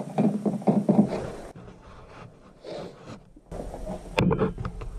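Labradoodle puppy whining in a plastic crate for about the first second, then rubbing and scraping handling noise with a sharp click a little after four seconds.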